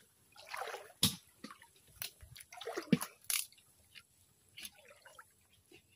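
Irregular splashes and drips of shallow muddy water, with a few sharp knocks, the loudest about a second in and around three seconds in.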